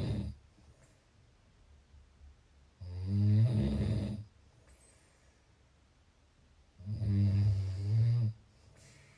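A person snoring: two low snores, each about a second and a half long and some four seconds apart, with the tail end of another at the very start.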